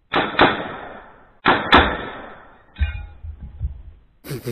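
5.56 M4-style AR-15 firing: four sharp cracks in two quick pairs about a second apart, each with a long echoing tail. About three seconds in comes a duller clatter and thud as the shot-through steel target post breaks and the plate drops.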